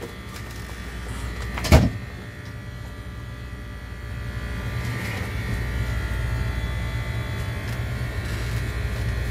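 Steady low machine hum with a faint whine, and one sharp thump a little under two seconds in, as a foot presses on the flattened cardboard.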